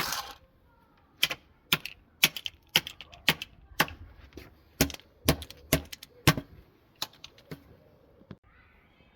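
Plastic remote-control car controller being struck hard again and again: a quick, irregular series of sharp plastic knocks and cracks, about two a second, that stops about two seconds before the end.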